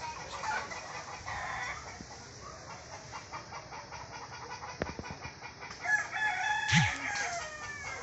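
Bird calling: scattered short calls, then a loud, drawn-out pitched call lasting about two seconds from about six seconds in. A couple of sharp clicks come shortly before it.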